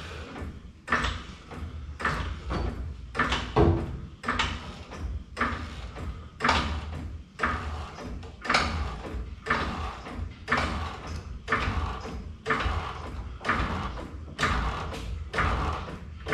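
Hydraulic jack being pumped by hand to raise a truck frame, a noisy stroke about once a second.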